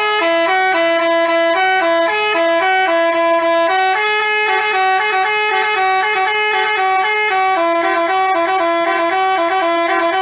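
Telolet basuri horn playing a tune: a melody of short, steady, pitched horn notes changing several times a second.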